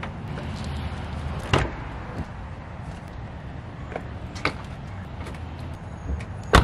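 Luggage being loaded into an SUV through its open rear door: a few scattered knocks and thuds of a hard-shell suitcase against the car, then a louder bang near the end, over a steady low hum.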